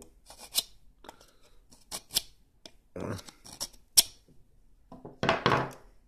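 Stanley 12-in-1 multi-tool's steel chisel blade being sharpened: a series of short, irregular metal scraping strokes, with a sharp scrape about four seconds in and a longer one near the end.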